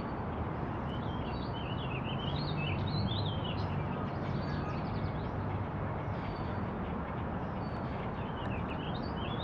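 A small songbird singing a rapid, warbling song of quick up-and-down notes, once for a few seconds and again near the end, over a steady low background rumble.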